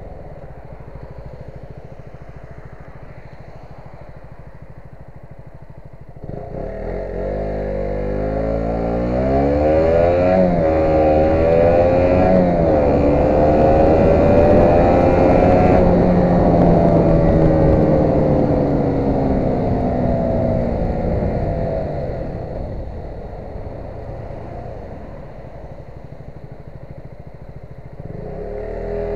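Motorcycle engine on the move. About six seconds in it opens up and the revs climb, dip briefly and climb again, then hold and slowly fall away as it eases off. It runs quieter before that and toward the end, and picks up again at the very end.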